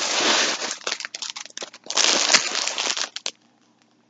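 Plastic yarn packaging crinkling as it is handled, in two rustling spells, the first in the first second and the second about two seconds in, with scattered crackles between.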